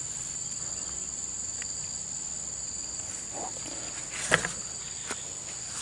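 Steady high-pitched drone of insects, with a single sharp click about four seconds in.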